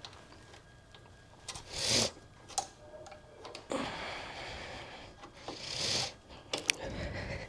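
Ratchet and socket clicking in short spells while an 8 mm bolt on a motorcycle's shift linkage is run in, with a few sharp metal clicks. Two louder rushes of noise come about two and six seconds in.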